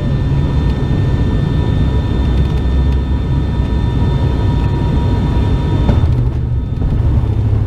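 Turboprop airliner's engines and propellers droning in the cabin during landing, over a heavy low rumble. Steady high whining tones run through it and cut off about six seconds in.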